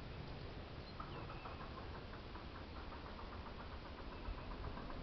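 Rapid chattering animal call, a steady train of short pulses at several a second, starting about a second in. A few faint higher chirps and a low rumble lie underneath.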